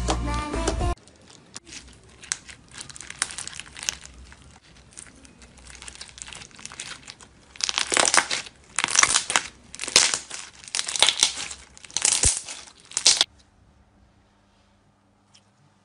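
Background music cuts off about a second in. Slime is pressed and squeezed by hand, giving faint crinkly crackles, then, about halfway through, five or six loud bursts of crackling as a thick slime studded with white beads is squeezed. The sound nearly stops near the end.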